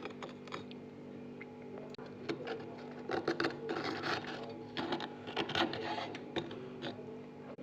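Freezer frost crunching in irregular, crisp crackles that grow denser from about two seconds in, over a steady low hum.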